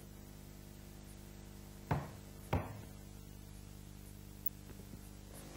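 Two short knocks about two-thirds of a second apart, over a steady low electrical hum on the soundtrack.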